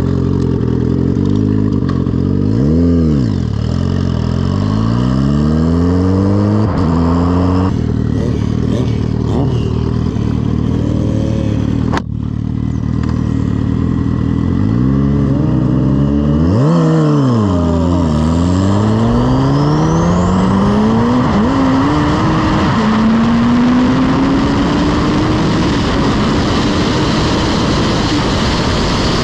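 Turbocharged Suzuki Hayabusa inline-four revved in quick blips, then launched at full throttle and pulling hard through the gears. Its pitch climbs steadily in top gear past 160 mph, with wind rushing over the onboard camera.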